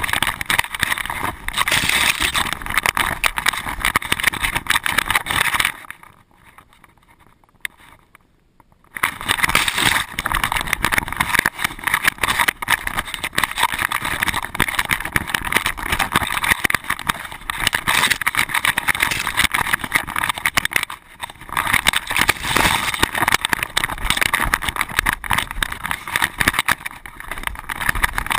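Loud, continuous rattling and scraping from a loosely attached GoPro bouncing and rubbing against a running dog's back and fur. The noise cuts out almost entirely for about three seconds about a quarter of the way in, then resumes.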